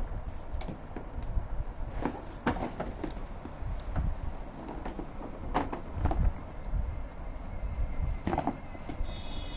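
Handling noise: irregular knocks, clicks and rubbing as the toy car's box and parts are handled, with a brief high whine near the end.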